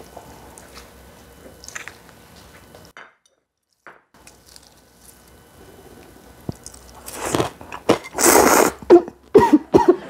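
Close-miked eating of cold naengmyeon noodles: after a quiet stretch and a brief dropout, a loud slurp of noodles about eight seconds in, followed by chewing and crunching.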